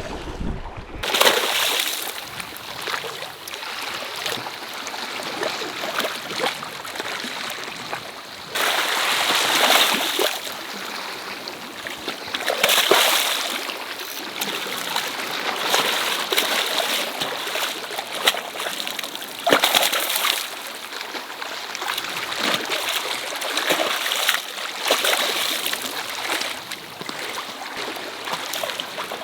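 Water splashing and sloshing, swelling and easing every few seconds.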